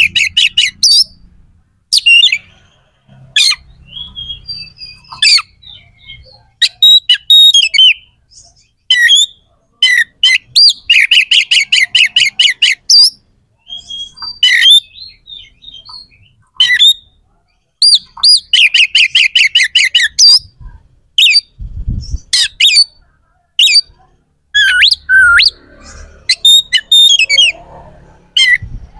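Oriental magpie-robin (kacer) singing a loud, harsh, varied song used as a bait song to provoke other magpie-robins. Rapid rattling trills of about ten notes a second come near the start, midway and again about two-thirds through, with sharp harsh notes and whistled phrases between them.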